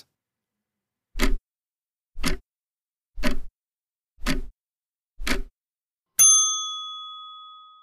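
Countdown timer sound effect: five clock-like ticks about a second apart, then a single bell ding that rings and fades over about two seconds, signalling that the time to answer is up.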